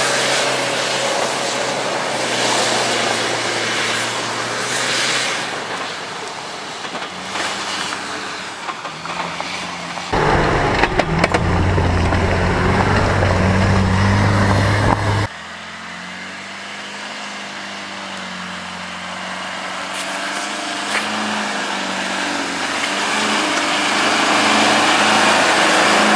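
Off-road 4x4 engines running in a string of short clips. The sound changes abruptly twice, with a louder, deeper engine drone from about 10 to 15 seconds in.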